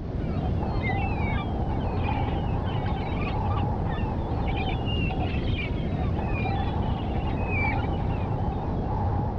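Storm wind and surf: a steady rush of wind and breaking water with a wavering howl, and many short bird cries over it.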